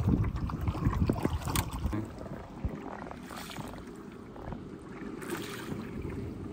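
Canoe paddles dipping and pulling through lake water, a soft swish of water about every two seconds. A loud low rumble, like wind on the microphone, fills the first two seconds.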